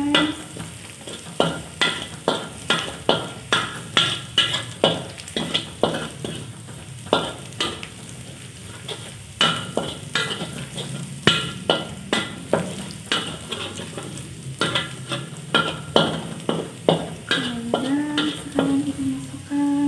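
A metal spatula scrapes and knocks against a wok, about two strokes a second with short breaks, while sliced shallots and garlic sizzle in hot oil.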